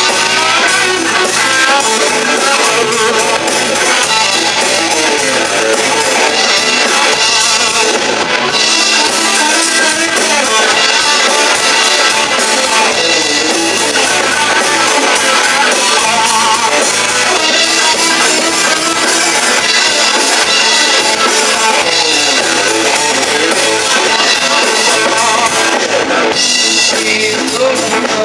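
A live rock band plays loud and without a break: electric guitar, electric bass and a drum kit.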